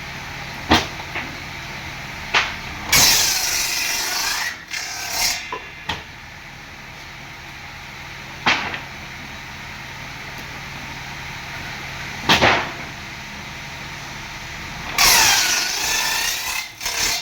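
Power tool working wood: a steady motor hum with a few sharp knocks, and two spells of loud cutting noise, about three seconds in and again near the end, its pitch dipping and rising as the tool takes the load.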